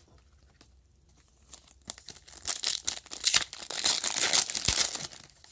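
Trading-card pack wrapper being torn open and crinkled, a crackly rustle that starts about two seconds in and goes on for about three seconds.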